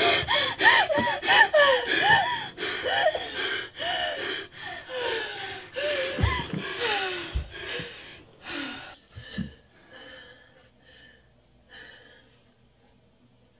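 A person's quick, gasping, strained cries during a struggle, coming several times a second and fading out about nine seconds in, leaving only faint breaths.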